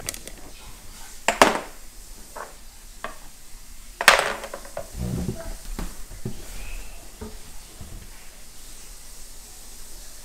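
Hard plastic knocks and light scraping as a plastic toy car is handled and pushed on a tabletop. Two sharp knocks stand out, about a second and a half in and about four seconds in, with smaller ticks between.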